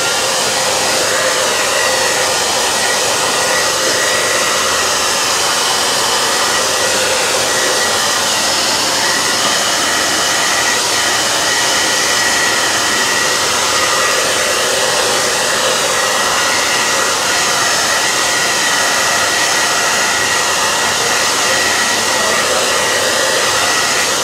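Handheld hair dryer blowing steadily over a wet watercolor wash to dry it, switched on right at the start. A faint steady whine sits within the rush of air.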